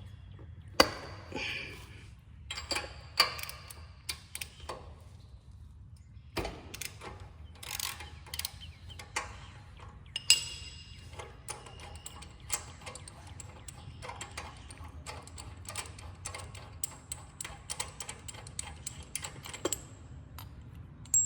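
Socket wrench ratchet clicking in irregular runs while a spark plug is unscrewed from the mower's Kawasaki FR691V engine, with scattered sharp tool knocks and taps. The ticking gets quicker and denser late on.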